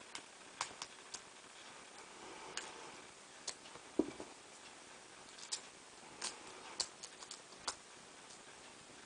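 Lock picks clicking and scraping on the pin stack inside the keyway of a small solid-brass padlock fitted with spool pins: scattered, irregular small clicks, with one duller knock about four seconds in.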